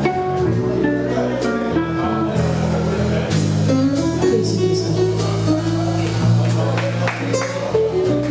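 Live small jazz band playing an instrumental passage: guitar melody over a walking bass line and drums with cymbal strikes.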